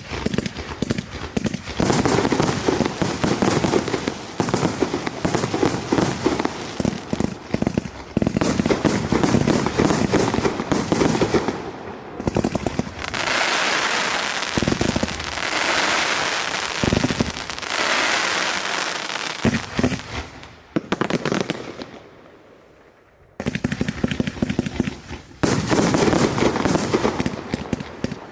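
Display firework battery (cake) firing, a rapid string of launch shots with a stretch of steady hiss in the middle. It dies down about 21 seconds in, and a fresh barrage of shots starts about two seconds later.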